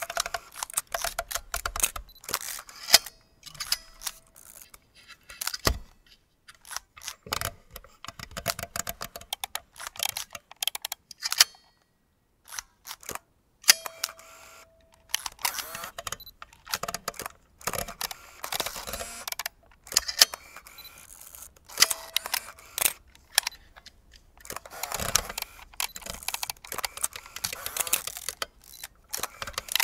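Vintage film camera mechanisms being worked: runs of sharp mechanical clicks and clacks from shutters and film-advance winding, in bursts with short pauses. A brief hum sounds now and then, and there is a second or so of near silence shortly before the middle.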